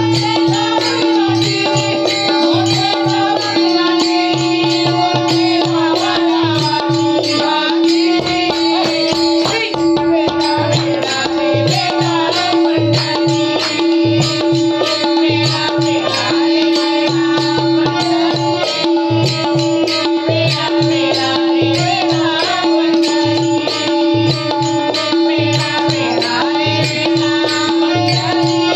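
Marathi bhajan group performing devotional music: a singing voice over a steady held drone note, with regular hand-drum strokes keeping the rhythm.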